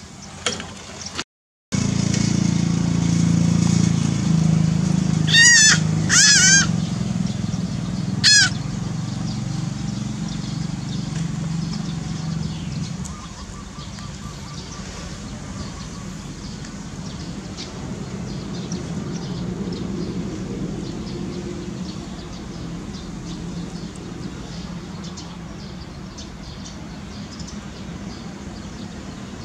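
Kitten mewing: three short, high-pitched calls a few seconds in, over a steady low hum that fades away about halfway through.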